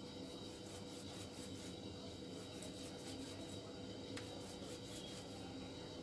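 Faint soft rubbing and squishing of hands rolling sticky rice dough into a cylinder, in short spells, over a steady low hum.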